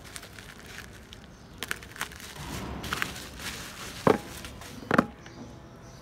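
Bubble wrap crinkling and rustling as a package is unwrapped by hand, with a few sharp clicks and two loud sharp cracks about four and five seconds in.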